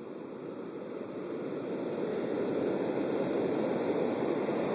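Heavy storm surf: big waves breaking and washing up a sandy beach. The rush of water grows louder over the first two seconds or so, then holds steady.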